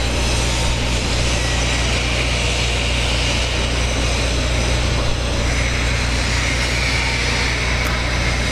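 Steady shop noise with a constant low electrical hum, as a TIG torch arc is struck on the steel pipe for the root pass; a higher hiss joins from about five seconds in.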